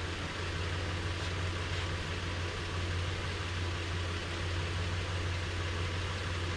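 Nissan Frontier's 4.0-litre V6 idling with a steady low hum, left running so the automatic transmission fluid can be checked warm.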